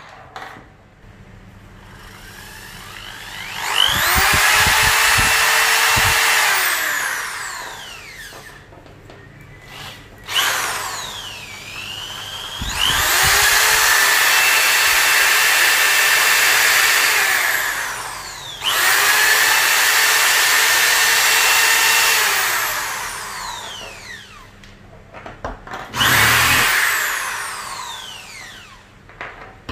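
DeWalt DWD024 650 W corded hammer drill run without load several times, with the hammer action engaged: each time the motor whines up to full speed, holds steady for a few seconds and spins down. The last run, near the end, is short.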